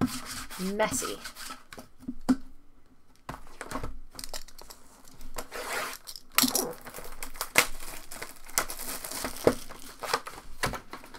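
Plastic shrink wrap on a sealed trading-card box crinkling and tearing as it is peeled off, in a run of crackly rustles that grows busier in the second half.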